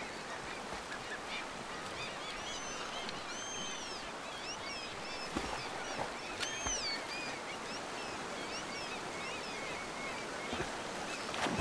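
Birds calling again and again in short, arched, rising-and-falling calls over the steady rush of a river.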